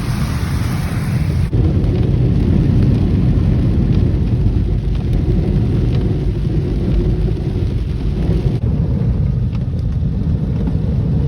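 Steady low road and tyre rumble inside the cabin of a moving car, a Ford Escape, with a lighter hiss on top that thins out about a second and a half in.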